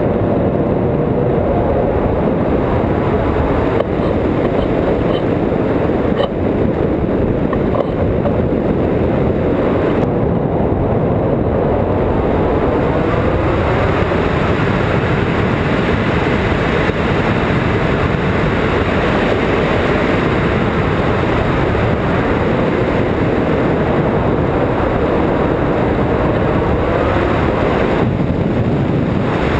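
Loud, steady wind noise: air rushing over the microphone of a camera mounted on a hang glider in flight.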